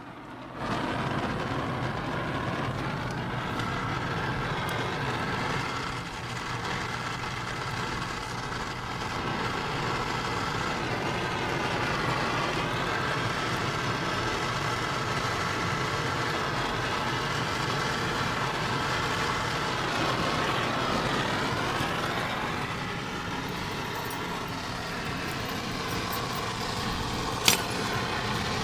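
Brazing torch flame hissing steadily as the new reversing valve's copper pipe joints are brazed, the flame coming on suddenly about a second in. A single sharp click near the end.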